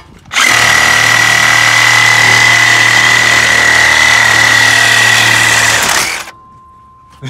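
DeWalt cordless reciprocating saw cutting through the steel exhaust pipe to take off the catalytic converter. It runs loud and steady, with a high whine over the rasp of the blade, for about six seconds, then stops.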